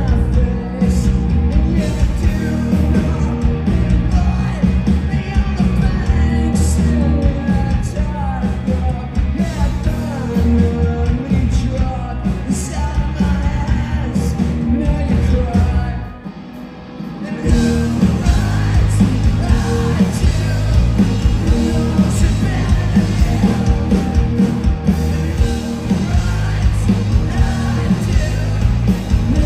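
Live rock band playing: electric guitars, bass guitar and drums, with a sung vocal over them. About halfway through, the band briefly drops out for a second or so, then comes back in at full volume.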